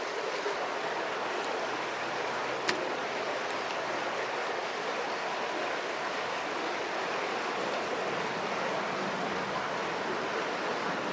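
A stream's water rushing steadily, with one sharp click about three seconds in.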